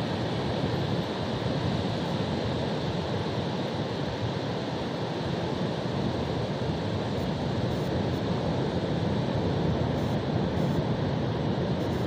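Surf breaking on a beach, a steady rushing wash of waves, with wind on the microphone.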